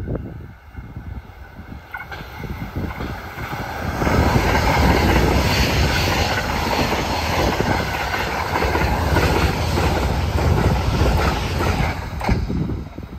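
Limited express electric train passing at high speed: a loud rush of wheels on rail and moving air, with quick rail-joint clatter, building over the first few seconds and falling away sharply near the end.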